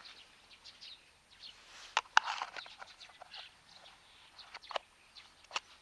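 Hard plastic dog puzzle-toy parts clicking and knocking as they are handled and set down, sharpest twice about two seconds in and again near the end, with faint bird calls in the background.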